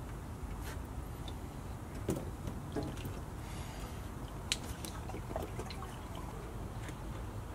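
Scattered small clicks and taps as an old oil filter is twisted off by hand, with faint dripping, over a steady low background rumble.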